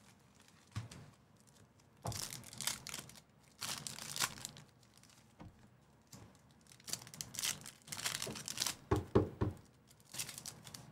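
Panini Prizm basketball card-pack wrappers being torn open and crinkled, in several irregular bursts of crackling, with a few soft thuds near the end.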